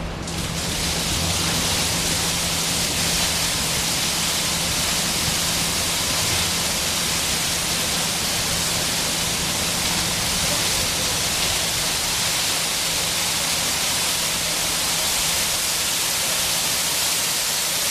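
Fountain water curtain falling from an overhead canopy onto wet paving: a steady hiss of falling and splashing water that comes up sharply just after the start and then holds even. A faint low steady hum lies underneath.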